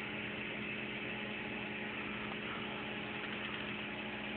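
Aquarium air pump and bubbling air stone running: a steady low hum under an even hiss.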